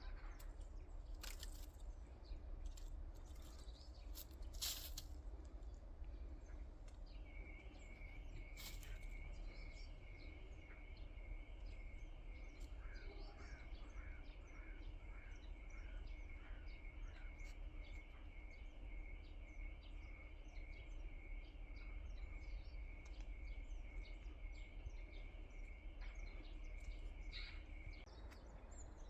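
Faint outdoor ambience: small birds chirping and twittering throughout over a low steady rumble. A steady high-pitched tone begins about a quarter of the way in and stops shortly before the end, and a short run of evenly spaced chirps sounds around the middle.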